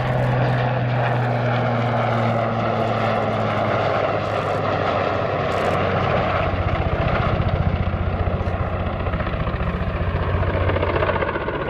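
Eurocopter AS532UL Cougar (Super Puma) military helicopter flying past: a steady engine tone with the fast rhythmic beat of its four-blade main rotor, which comes through more plainly in the second half.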